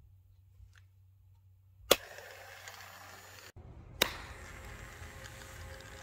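A sharp crack about two seconds in, then the steady whir of a small DIY robot car's toy DC motor running. After a brief break comes a sharp hand clap, the trigger for the car's sound sensor, and the motor runs on with a faint steady whine.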